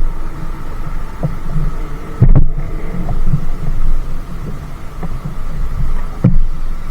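Low, irregular thumps and rumbling, the strongest about two seconds in and again near the end, over a faint steady hum.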